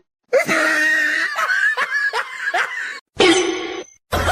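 A person laughing in a run of short repeated pulses, cut off abruptly about three seconds in, followed by a brief separate burst of sound.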